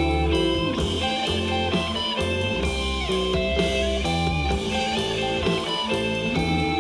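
Rock music with electric guitar, bass and a steady drum beat, played back through JBL LSR305 studio monitors and picked up in the room by a recorder.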